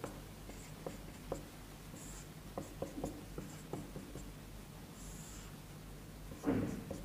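Dry-erase marker writing on a whiteboard: light taps and short squeaky strokes as letters and lines are drawn, with a brief louder sound near the end.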